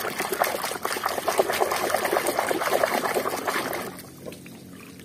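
Water sloshing and splashing as a hand swishes a muddy plastic toy car around in a basin of murky water to wash off the mud. The sloshing dies down about four seconds in.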